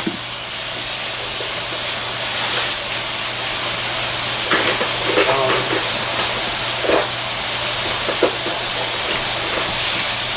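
Steady background hiss with a faint low hum, with a few faint short sounds in the middle.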